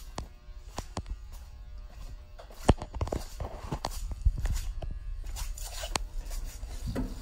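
Footsteps on a hard shop floor, with scattered knocks and clicks of handling at irregular intervals over a steady low hum.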